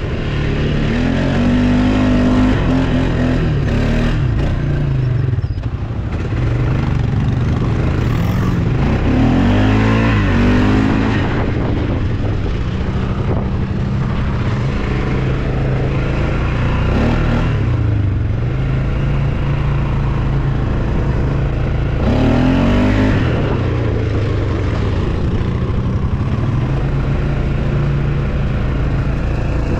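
CFMOTO 850 quad bike's engine running as it is ridden, the pitch rising and falling with the throttle, with several stronger revs about ten, seventeen and twenty-two seconds in.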